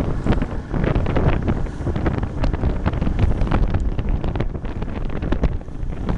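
Wind buffeting the microphone aboard a motorboat running at speed, with the rush of the hull and spray through choppy water and irregular thuds.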